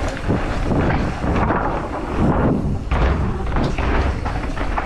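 Mountain bike ridden fast down an urban course: wind rumbling on the camera microphone, with thuds and knocks from the tyres and suspension hitting the ground. The low rumble is heaviest about three seconds in.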